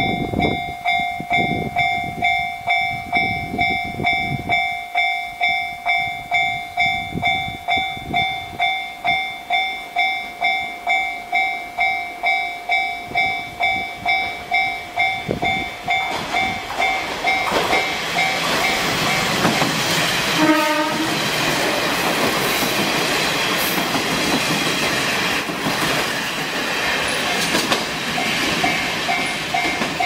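Japanese level-crossing warning bell ringing at about two strikes a second. About sixteen seconds in, a four-car JR Kyushu diesel railcar set (a KiHa 31, two KiHa 47s and a KiHa 40) comes through the crossing with a loud run of wheel and engine noise that drowns the bell, a brief tone falling in pitch cutting through it about twenty seconds in; the bell is heard again near the end.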